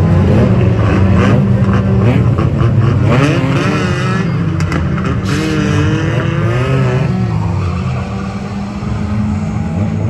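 Several banger racing cars' engines running and revving close by, their pitch rising and falling, with tyres squealing on the tarmac.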